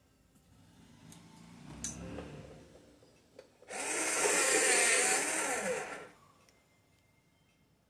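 A small electric motor whirs loudly for about two seconds, starting and stopping abruptly, its pitch wobbling as it runs. Before it come faint handling noises and a single click.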